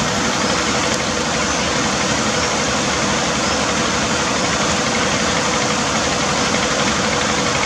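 Fast-flowing stream rushing and splashing over rocks and debris: a steady, loud rush of water.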